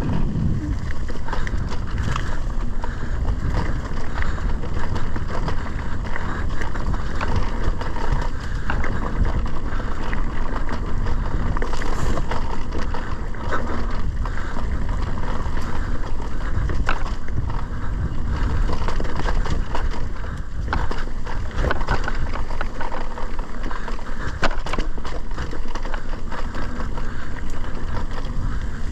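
Mountain bike ridden over a rough dirt trail: a dense, continuous rattle of tyres and frame over bumps, with wind buffeting the camera microphone in a low rumble.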